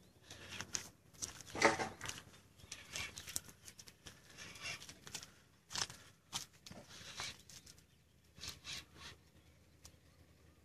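Spinning reel's drag giving line in short bursts at irregular intervals as a hooked arapaima pulls against the bent rod, the longest burst about a second and a half in.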